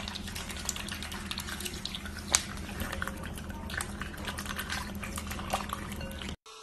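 White domestic duck dabbling its bill in a shallow bowl of water for peas: quick wet splashes and small clicks, with one louder knock about two seconds in, over a steady low hum. The sound cuts off suddenly near the end.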